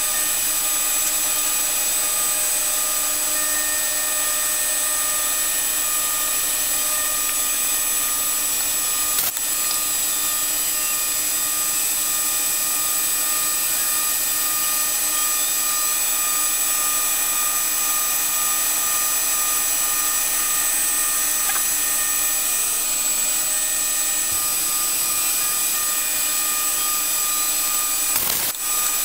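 DIY-converted CNC milling machine running a 2 mm carbide end mill at about 6,000 rpm through a profiling cut in a metal plate under coolant: a steady hiss and whine with several constant tones. A brief click comes about nine seconds in and another near the end.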